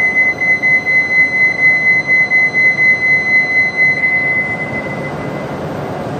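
Electronic departure bell on the Shinkansen platform: one steady high tone, pulsing slightly, that rings for about four seconds, then stops and dies away in the echo of the underground platform. A steady background hum runs beneath it.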